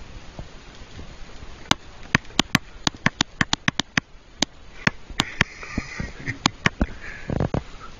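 A rapid, irregular run of about twenty sharp clicks or taps, starting about two seconds in and lasting some five seconds, over a low hiss.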